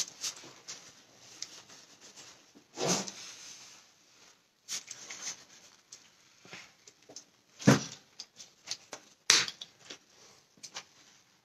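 Cleaning a fresh tattoo: squirts from a trigger spray bottle and a paper towel rubbed over the skin, with scattered small clicks and a couple of sharper knocks, the loudest about eight seconds in. The tattoo machine is not running.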